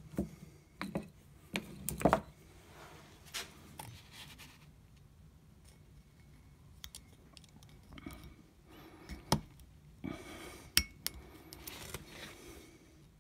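Small metal pick scraping and clicking inside the bore of a rusty brake caliper as the piston seal is pried out of its groove, with the caliper being handled on the bench: scattered sharp clicks and taps.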